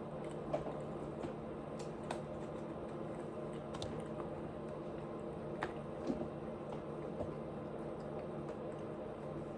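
Mouth sounds of a person chewing food: scattered wet clicks and squishes at irregular moments, a few seconds apart, over a steady low hum.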